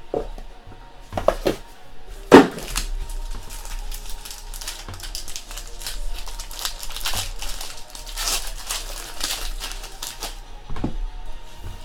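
Trading cards and their packaging being handled: a busy run of rustling, sliding and small clicks, with one sharp click about two seconds in. Background music plays underneath.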